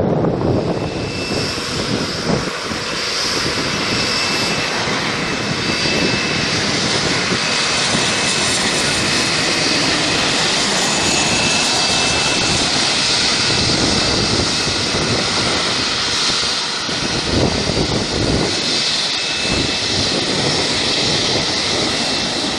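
Jet airliner engines on a runway: a steady rush of turbofans with a faint high whine, as a twin-jet rolls out and a Boeing 737 touches down and slows. In the last few seconds the low rumble turns uneven.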